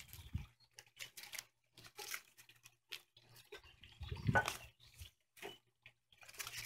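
Dry phragmites reed stalks rustling and knocking together as they are gathered into a bundle and tied with twine: scattered short clicks and crinkles, with a louder rustle about four seconds in.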